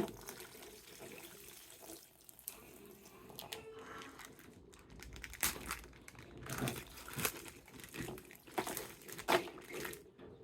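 Irregular crinkling and rustling of plastic toy packaging being handled, with scattered sharper crackles, busier in the second half.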